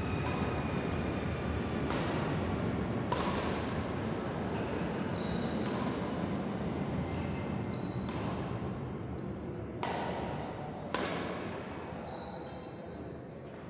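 Badminton rally: rackets strike the shuttlecock with sharp hits about once a second, the two loudest about ten and eleven seconds in, with short high squeaks of shoes on the wooden court in between, over a steady background noise. The hits stop and the sound drops off near the end as the rally finishes.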